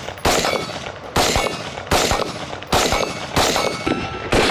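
Rifle fired in steady semi-automatic fire: six shots a little under a second apart, each trailing off in a long echo.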